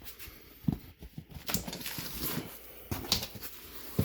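Cardboard box and packaging being handled and opened: a string of irregular knocks and clicks with rustling between them.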